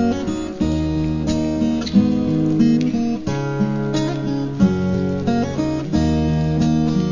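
Acoustic guitar strumming chords, changing about every second, in the instrumental intro of a Thai pop ballad before the vocals come in.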